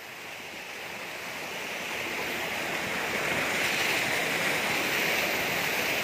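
Rushing water of a waterfall and its rocky stream, a steady rush that grows gradually louder over the first few seconds, then holds.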